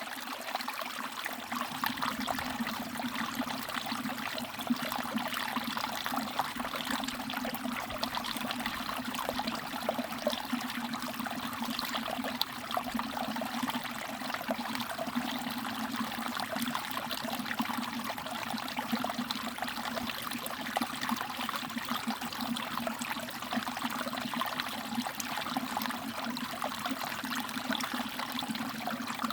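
Small mountain valley stream trickling and babbling steadily, a dense, even patter of water.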